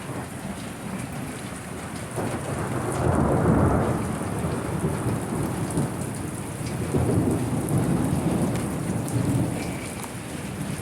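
Steady rain falling, with a low rumble that swells about two to four seconds in and again around seven to nine seconds in.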